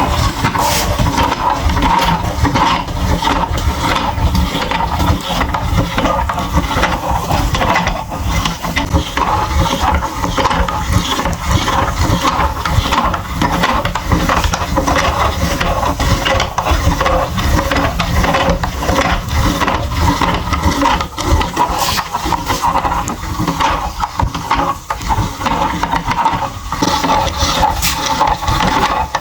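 Meat grinder crushing something hard and brittle: a steady, dense crackle and crunch over a low running rumble.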